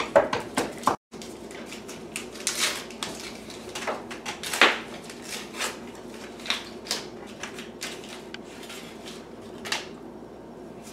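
Baseball card packs and cards being handled: wrapper rustles and card clicks and taps in short, irregular bursts, with a brief total dropout about a second in.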